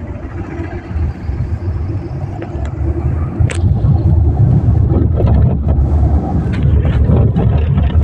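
Road and engine noise inside a moving Suzuki car's cabin: a steady low rumble that gets louder about three and a half seconds in.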